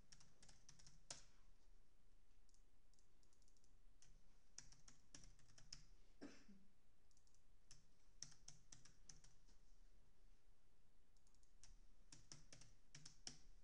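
Faint typing on a computer keyboard in short quick runs of keystrokes, with pauses between the runs.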